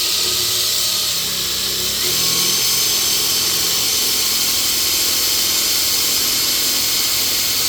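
Power drill running steadily under load, its bit boring a hole through hard tamarind wood.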